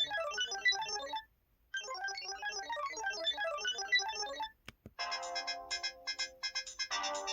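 Samsung SCH-X600 mobile phone playing its built-in ringtones. A dense run of rapid electronic chirps plays, stops briefly and repeats. After a click about five seconds in, a different ringtone of rhythmic, pitched beeping notes starts.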